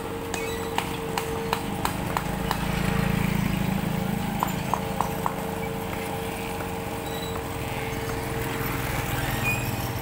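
Street sounds with motorbike engines passing, a steady high hum, and two short runs of sharp, evenly spaced clicks.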